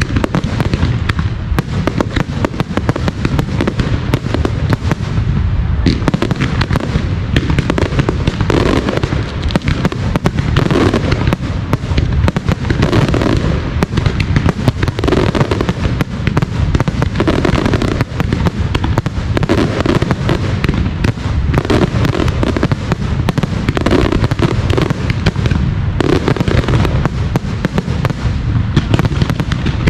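Fireworks display at full intensity: aerial shells and low-level fireworks firing in a dense barrage, rapid overlapping bangs with no pause.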